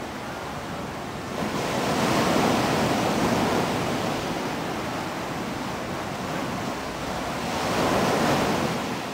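Ocean surf: a steady rushing wash of waves that swells about a second and a half in and again near the end.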